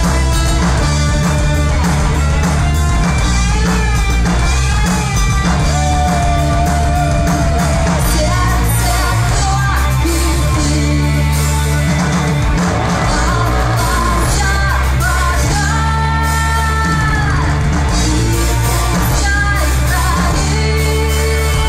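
Live rock band playing: a woman sings the melody over electric guitars and a drum kit, the sound loud and steady throughout.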